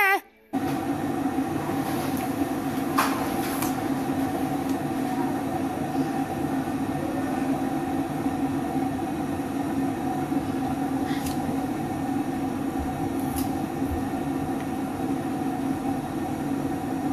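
A steady mechanical drone with a constant low hum, like an appliance motor running, with a few faint clicks.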